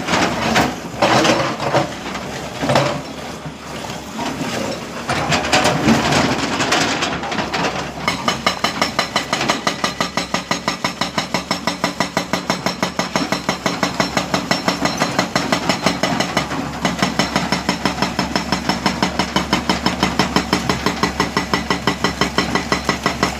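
Hydraulic rock breaker on an excavator hammering hard rock in a steady, even rhythm of about four blows a second, with the machine's engine running under it. Before the hammering settles in, about eight seconds of irregular knocks and scraping of rock.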